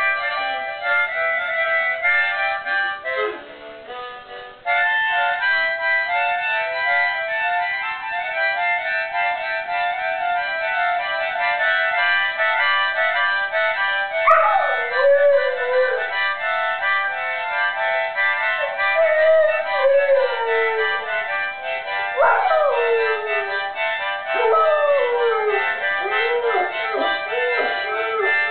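Music of held chords, joined about halfway in by a Labrador retriever howling along: long howls that slide down in pitch, then near the end a string of shorter, wavering howls.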